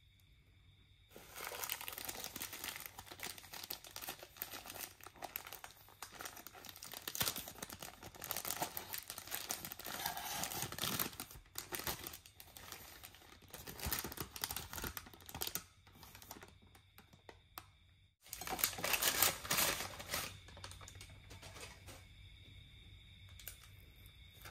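Bubble wrap and a paper bag crinkling and rustling as hands unpack a cardboard box, in dense crackly bursts. After a quieter stretch it breaks off abruptly about eighteen seconds in, then comes one more loud burst of crinkling for about two seconds.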